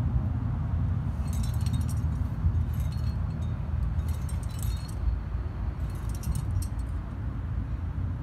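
Metal climbing gear (carabiners and trad protection on a harness rack) jingling and clinking in several short bursts, over a steady low rumble.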